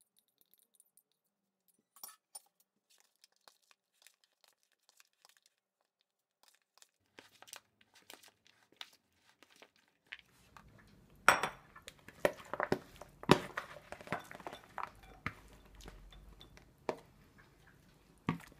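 First, faint clicks of a metal spoon scraping dressing from a ceramic cup onto salad. Then, about ten seconds in, louder knocks and clinks as a glass bowl meets a plastic bowl and salad leaves are tipped and scraped from one into the other, with the lettuce rustling.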